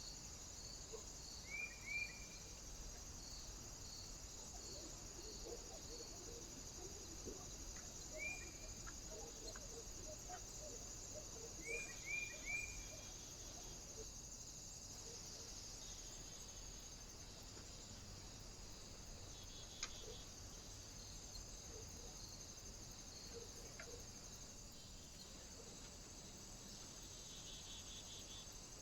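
Short, high bird call notes in pairs and threes, a few times in the first half, over a steady high hiss. One sharp tap comes later on, with faint scattered ticks in between.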